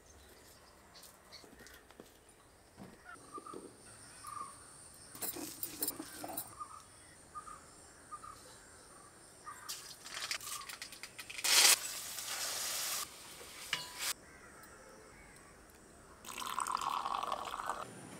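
A run of close-up kitchen sounds: small knife cuts and scrapes on shallots with birds chirping. Then liquid is poured from a glass jar into an iron kadai over a wood fire, followed by a steady hiss that cuts off abruptly. Another pouring rush comes near the end.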